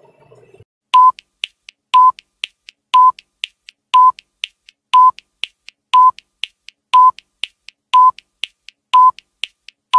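Electronic countdown timer beeping once a second, about ten short beeps of the same pitch with fainter ticks between them, timing a 10-second rest interval.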